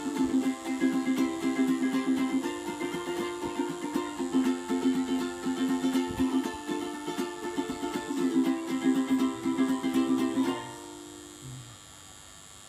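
Small acoustic band playing an instrumental passage: ukulele and acoustic guitar strumming a steady rhythm, with held melody notes over them. The playing stops on a final chord about ten and a half seconds in, which rings out briefly.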